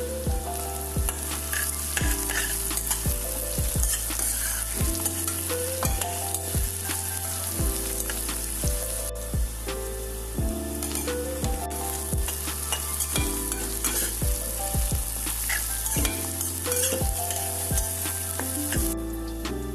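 Oil sizzling and spattering as onions, peanuts and mustard seeds fry in a steel pan, stirred with a slotted steel spatula. Background music with a steady bass line plays underneath.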